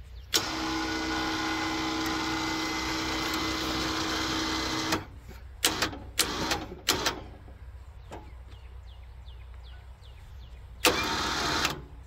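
Electric motor on a portable band sawmill, switched on with a clunk and run steadily for about four and a half seconds, then cut off and jogged in a few short bursts, the last near the end, as the saw is set into position for the cut.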